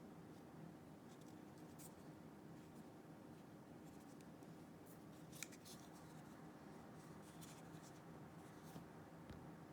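Near silence with a low room hum and a few faint clicks and rubs from a Nokia 3120 mobile phone being handled, the sharpest click about five and a half seconds in.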